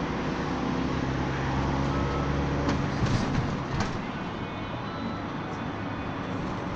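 Mercedes-Benz Sprinter minibus driving, heard from inside the passenger cabin: engine drone and road noise. The engine's steady drone drops away about three seconds in, with a few clicks and rattles around the same moment.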